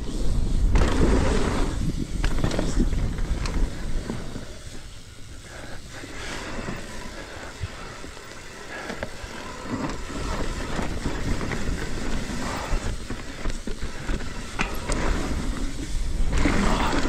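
Mountain bike riding down a dirt trail, heard from an action camera: tyres rolling over dirt with scattered rattles and clicks, and wind rumbling on the microphone. Louder for the first few seconds and again near the end, quieter in between.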